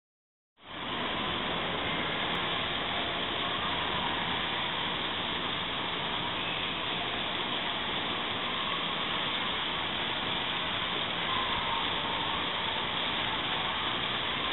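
Steady hiss of spraying and splashing water in an indoor waterpark splash area, starting suddenly about half a second in.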